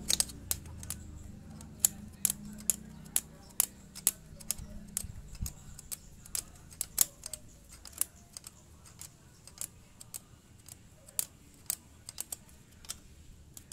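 Sharp metallic clicks and clinks of a small spanner on a bolt and locknut, irregular, about two to three a second, as an improvised bolt is tightened against a Suzuki Smash's cam chain tensioner to take up a worn, slack timing chain.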